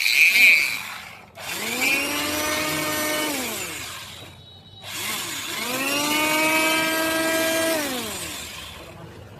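Handheld electric planer motor test-run twice after a bearing fitting: each time it spins up, runs steadily at a high hum with a whirring blade drum for about two seconds, then winds down as it is switched off. A short loud noisy burst comes right at the start.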